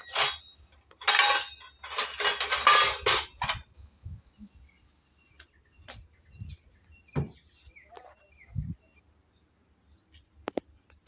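Dishes and utensils clattering and clinking, dense for the first few seconds, then scattered single clinks and knocks.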